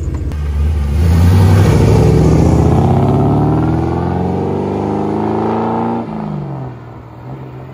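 A 1955 Chevy Bel Air's 383 V8 accelerating hard, its engine note climbing steadily in pitch. About six seconds in the pitch falls sharply and the engine grows fainter.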